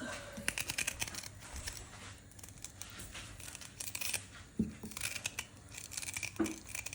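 A knife cutting peeled, roasted ginger root into small cubes: a run of short, crisp slicing and scraping sounds, with two duller knocks, the loudest about four and a half and six and a half seconds in.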